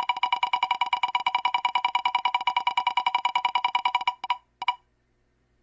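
Ticking of a spinning selection wheel: a rapid, even run of short pitched clicks, about a dozen a second. The clicks slow to a couple of final ticks as the wheel comes to rest about four seconds in.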